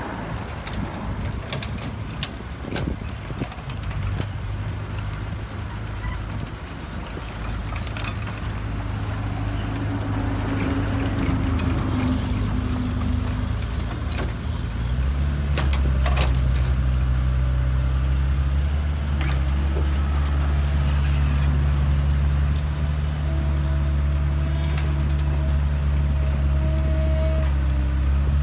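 Heavy diesel engine of a Kobelco excavator working, with scattered clanks and knocks. About halfway through the engine steps up to a higher, louder note and holds there.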